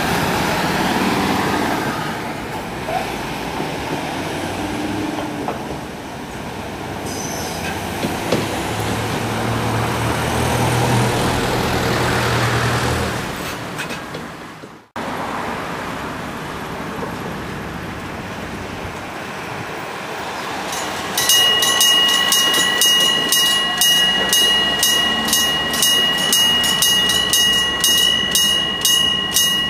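Level-crossing warning bell of a barrier-less type-3 railway crossing. It starts about two thirds of the way in and rings a steady electronic ding-ding at about one and a half strikes a second, the sign that a train is approaching. Before it there is a steady vehicle rumble that cuts out briefly midway.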